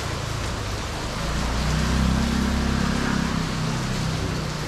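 Heavy rain hissing steadily. A vehicle engine rumbles nearby, swelling from about a second in and fading near the end.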